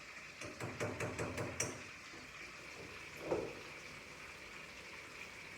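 A utensil knocking against a cooking pot about eight times in quick succession, then once more a couple of seconds later, over the steady hiss of food cooking on the stove.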